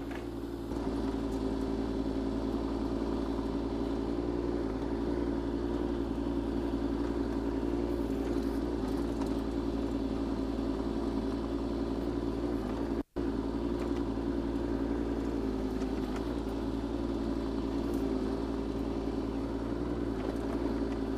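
Kubota K008-3 mini excavator's three-cylinder diesel engine running steadily under hydraulic load as the machine digs and pushes soil back with its blade, broken once by a momentary gap about two-thirds of the way through.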